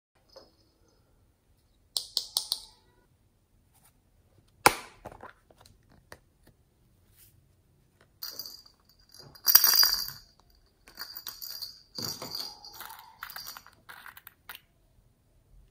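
Small plastic glitter pots handled and opened with a few sharp clicks. About halfway through, glitter and sequins are tipped and shaken out onto slime in rustling, hissy bursts.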